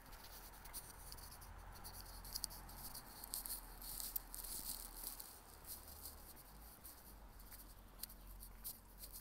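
Faint outdoor ambience made up of a quick, irregular crackle of small high ticks over a low steady hum.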